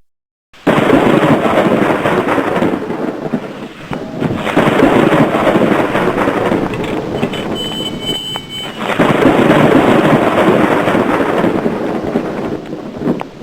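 Thunderstorm: long, loud rolls of thunder, swelling up three times, about a second in, about four seconds in and about nine seconds in, over a hiss of rain. It starts after a brief silence.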